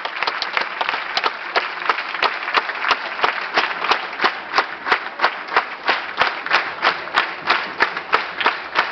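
Theatre audience applauding. The dense, scattered clapping settles after about three seconds into rhythmic clapping in unison, about two to three claps a second.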